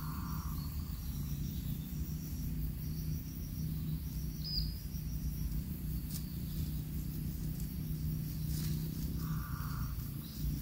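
Outdoor grassland ambience: a steady low rumble with faint, evenly repeated high insect chirps. Two short mid-pitched calls come through, one at the start and one near the end.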